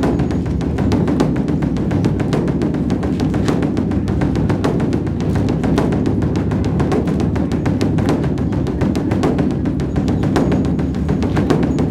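Beopgo, the large Buddhist dharma drum, beaten in a fast, continuous run of strokes.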